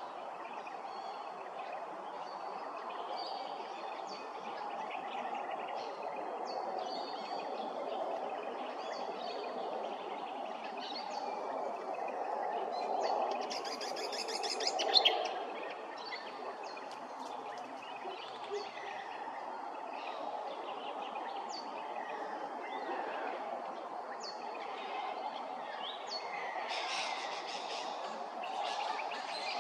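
Small birds chirping, with short high notes scattered throughout over a steady background noise. A brief, loud, sharp sound comes about halfway through, and a burst of rapid chattering calls comes near the end.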